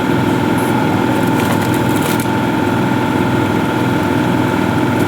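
Car running: a steady mechanical drone with a steady high whine over it.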